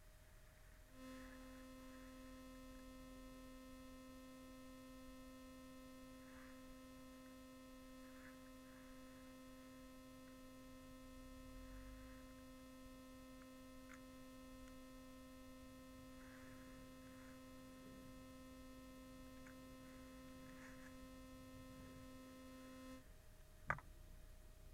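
A faint, steady electronic tone with overtones that switches on about a second in and cuts off near the end, over a low background hum.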